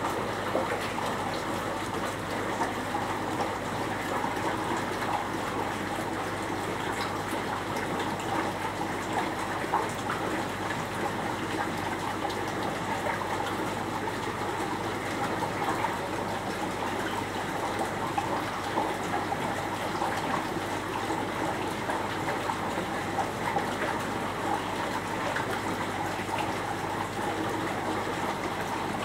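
Aquarium filtration water running and trickling steadily, with small splashing crackles and a low steady hum underneath.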